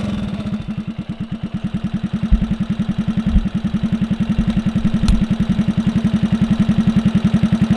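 1964 Honda C200 "Baby Dream 90" motorcycle's 90cc pushrod single-cylinder engine idling, with a rapid, even exhaust beat.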